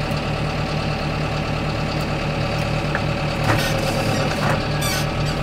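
Tractor engine running steadily under light load, heard from inside the cab as the tractor drives itself along a guidance line.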